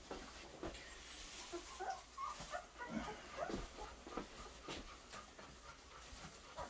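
Young puppies, their eyes just opening, squeaking and whimpering faintly in short scattered cries, most of them about the middle, with a few small clicks.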